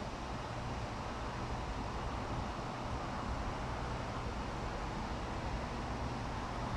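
Steady outdoor background noise: a low, even rumble with a faint hum under a constant hiss, with no distinct events.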